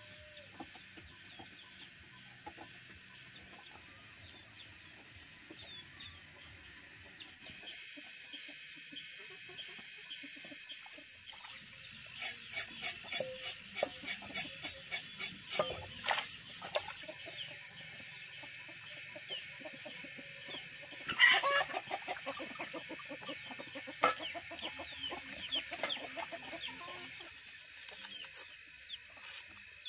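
Chickens clucking and calling over a steady high-pitched insect drone, with one louder short call about two thirds of the way through.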